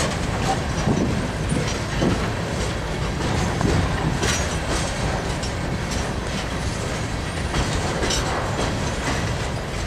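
Freight train of open-top hopper cars rolling steadily past, steel wheels clattering over the rail joints with a continuous rumble and a few brief high wheel squeals.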